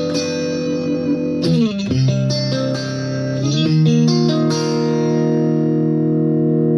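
Electric guitar played through a LEKATO R COMP compressor pedal: picked chords that change about two seconds in and again near four seconds. The last chord sustains long and even.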